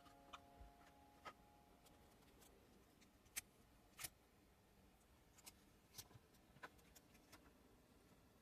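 Faint, scattered small clicks and taps of a homemade safety-pin hook remover, its wire set in a plastic handle, being picked up and handled over a cardboard surface; the two sharpest clicks come about three and four seconds in. The fading tail of a chime lingers briefly at the start.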